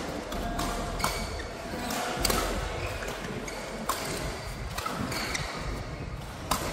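Badminton rally: sharp racket strikes on a shuttlecock about once a second, with short high squeaks of shoes on the court mat between the hits.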